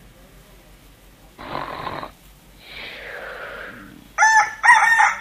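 A sleeping man snoring, two breathy rasps, then a rooster crowing about four seconds in, the loudest sound.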